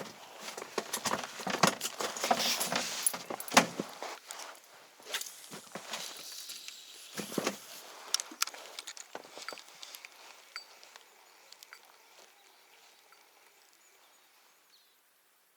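Irregular knocks, clicks and rustling of things being handled, thinning out over the second half and fading to near silence near the end.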